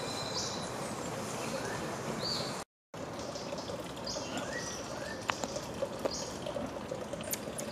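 Short, high-pitched chirps and whistles repeating over a steady hiss of background noise, with a few sharp clicks in the second half. The sound cuts out briefly about three seconds in.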